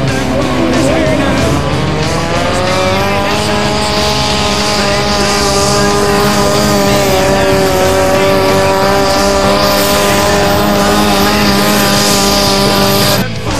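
Diesel engine of a modified pulling tractor under full load as it drags a weight sled, belching black smoke. Its pitch climbs over the first few seconds, then holds high and steady, and the sound cuts off suddenly near the end.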